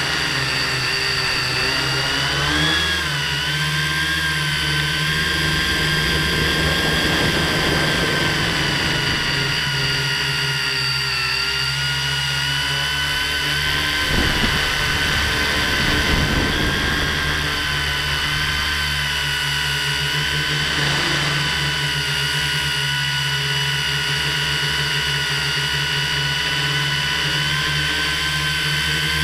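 FPV quadcopter's electric motors and propellers whining steadily, heard close up from the craft's own camera, the pitch shifting a little as the throttle changes.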